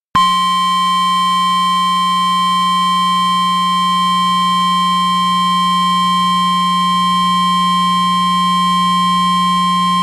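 A steady, unwavering electronic test tone, pitched near 1 kHz, with a low hum beneath it. It switches on and off abruptly.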